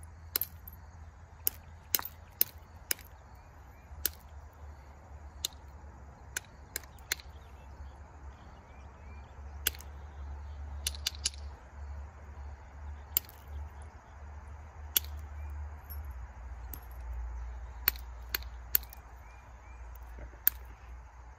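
Flint knapping: sharp clicks as a small hand-held tool strikes the edge of a flint biface and chips off small flakes, about twenty strikes at irregular intervals a second or so apart.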